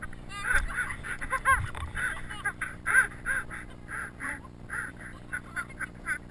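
A person laughing hard in a string of short, high-pitched, honking bursts, about two or three a second.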